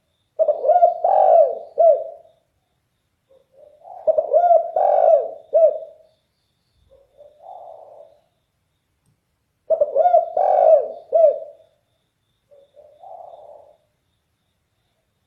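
Spotted dove (derkuku) cooing, deep-voiced and very loud. It gives three phrases of several rolling coos, one every few seconds. After the second and third phrases comes a fainter, shorter coo.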